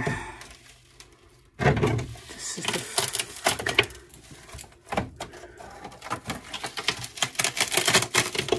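Brittle, cracked fiberglass and foam insulation being picked and broken away by a gloved hand: a dense run of irregular crackling, snapping and scratching that starts about one and a half seconds in.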